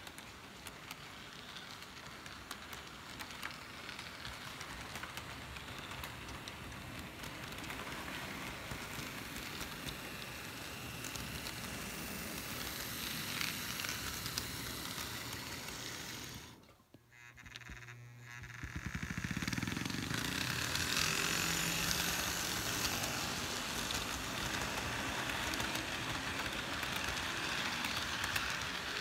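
Model freight train rolling past close by, its wheels making a steady rolling clatter on the track. The sound drops away briefly about 17 seconds in, then comes back louder with a low steady hum.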